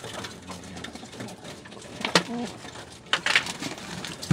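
Domestic pigeons cooing in a low hum, with a short pitched call about two seconds in and a few sharp clatters of birds moving on the wire mesh.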